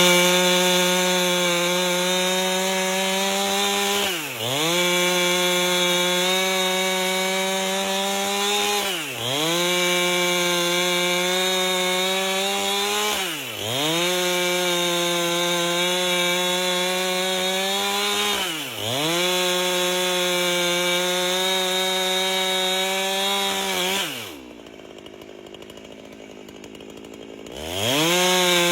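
Chainsaw with a 30-inch bar ripping an albasia log lengthwise, the engine running at high revs under load. The pitch sags and climbs back about every four to five seconds. Near the end the saw drops to idle for about three seconds, then revs up again.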